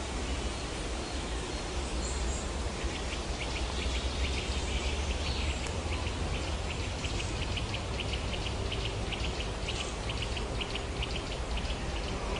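Steady, noisy outdoor ambience, with a rapid, irregular high-pitched ticking joining about three seconds in.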